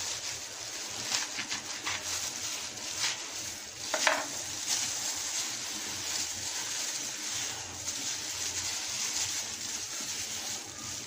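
Kitchen knife chopping jute leaves on a wooden cutting board: irregular knocks of the blade through the leaves onto the wood, over a steady hiss, with a short squeak about four seconds in.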